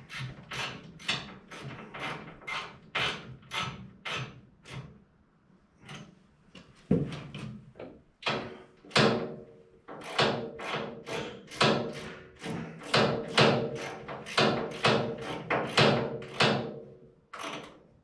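Repeated sharp knocks, about two to three a second, pausing for a couple of seconds about five seconds in, with one heavier knock around seven seconds. From about nine seconds on a steady ringing tone sounds along with the knocks.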